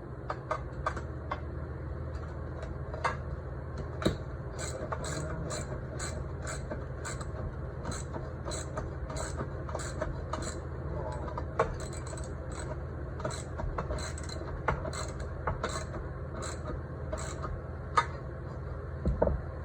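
Ratchet wrench clicking in a steady rhythm, about two clicks a second, as a fastener is worked tight.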